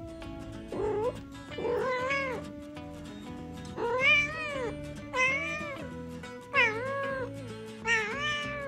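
Calico cat meowing about six times, each meow rising and falling in pitch, over steady background music.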